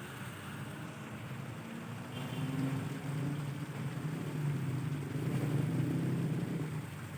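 A vehicle engine running, growing louder about two seconds in and fading near the end.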